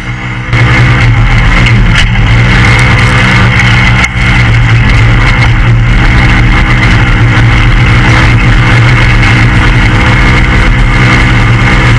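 Polaris RZR race car's engine running hard at steady high revs, with wind and rough-terrain noise from an exposed onboard camera. The engine note dips briefly about four seconds in, then picks up again.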